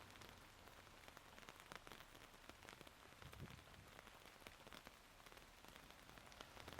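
Soft, steady rain falling, with the quick ticks of single drops landing close by, scattered irregularly. There is one soft low thump about three and a half seconds in.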